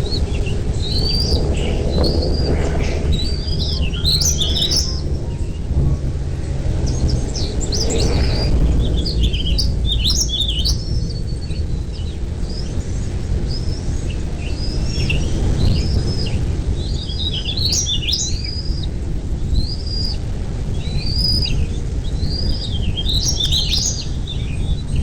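Birds chirping in quick, repeated short calls, over a steady low rumble of background noise.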